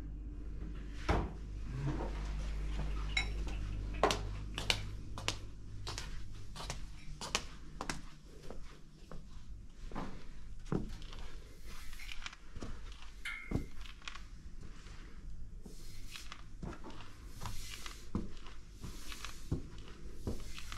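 Footsteps and handling knocks from a handheld camera carried through rooms: short clicks and thuds about two a second over a steady low hum.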